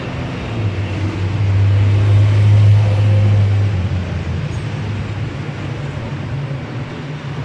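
Street traffic with a motor vehicle's low engine hum that swells louder about a second and a half in and fades again by about four seconds, as a vehicle passes close by.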